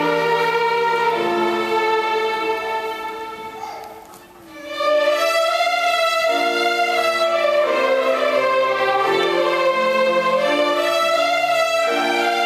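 A student violin ensemble playing together in sustained bowed notes. The playing fades away about four seconds in, then comes back at full strength with a higher, wavering melody.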